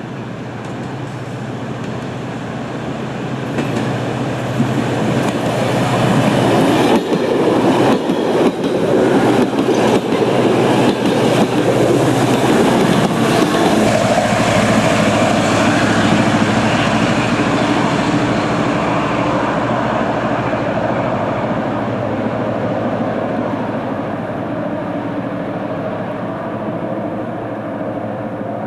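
An SNCB train hauled by a GM-engined diesel locomotive passing close by. The engine note builds and peaks about seven seconds in, the wheels clatter over the rail joints for several seconds, and then the sound slowly fades as the train draws away.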